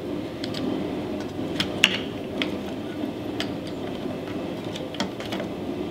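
Light clicks and taps from handling a bandsaw's plastic speed switch and its wiring in the red plastic handle housing, the sharpest click about two seconds in, over a steady low hum.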